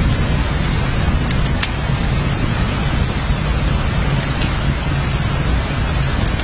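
Steady rain with a low rumble underneath and scattered sharp ticks of individual drops landing.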